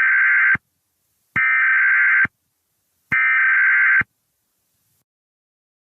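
Emergency Alert System SAME header: three harsh, buzzy data bursts of about a second each, separated by short silences, the coded header that opens a new alert.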